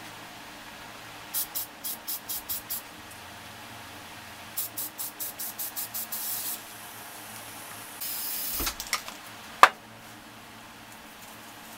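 Aerosol spray paint can spitting in short, rapid taps: a run of about seven quick hisses, then after a pause another run of about eight. A longer hiss and a few clicks follow, ending in a single sharp knock about ten seconds in, the loudest sound.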